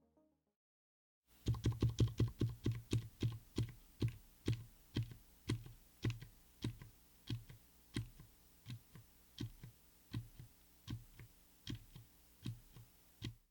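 Mechanical keyboard with TTC Frozen Silent Bluish White silent tactile switches, in a Tofu60 aluminium case with an FR4 plate, being typed on. About a second in comes a quick run of keystrokes, then single key presses at a steady pace of about two a second. Each is a short, low tap with a dampened silent bottom-out.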